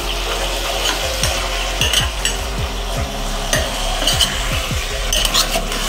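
Food sizzling in a pan while a utensil stirs it, with a few light clinks of the utensil against the pan.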